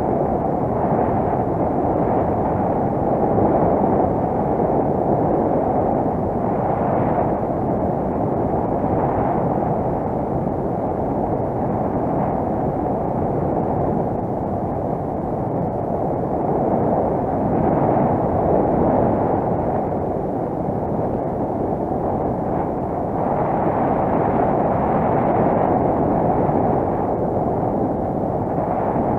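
Wind rushing over and buffeting the microphone of a paraglider pilot's harness-mounted camera in flight: a steady, deep rushing noise that swells and eases a little.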